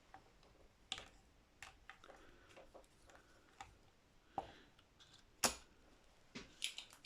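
Scattered small clicks and taps of soldering tools working on a guitar potentiometer lug as old solder is cleaned off, with the sharpest click about five and a half seconds in and a quick cluster of clicks near the end.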